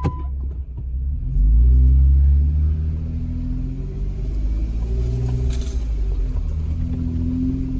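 Jeep JK Wrangler's engine pulling at low speed in four-wheel-drive low, with a steady low rumble and engine pitch rising and falling. It gets louder for about a second, about a second and a half in.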